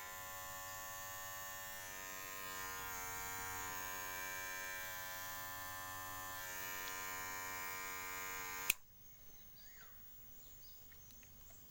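Kemei KM-2600 cordless hair clipper running with a steady motor hum, then switched off with a click about nine seconds in.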